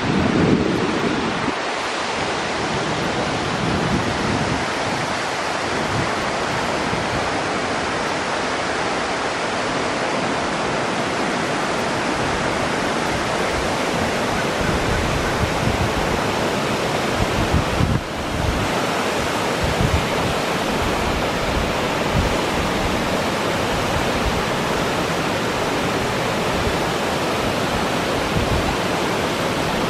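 Toxaway Falls, a broad cascade sliding down bare rock into a pool, rushing with a steady, even roar of water. Uneven low wind rumble on the microphone sits underneath, and there is a brief dip in level a little past the middle.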